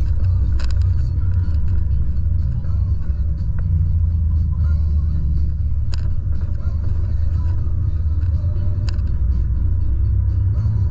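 Steady low rumble of a Volvo truck's diesel engine and tyres, heard from inside the cab on the move, with a few light clicks.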